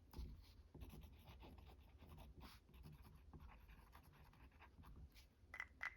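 Near silence with faint light rustling and small ticks of craft materials being handled on a tabletop, a couple of slightly sharper clicks near the end.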